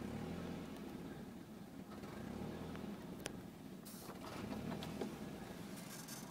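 1992 Nissan 240SX's 2.4-litre four-cylinder engine idling roughly, its low running note swelling and sagging unevenly: a rough, bouncing idle. A single sharp click sounds about halfway through.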